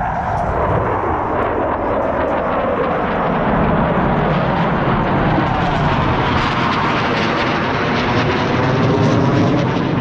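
Loud jet noise from a Blue Angels F/A-18 Super Hornet passing overhead. It builds over the first few seconds and then stays loud, with a sweeping, phasing sound as the jet moves.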